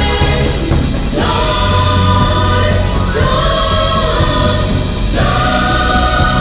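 Choral music: a choir sings long held chords that change about every two seconds, over a steady bass.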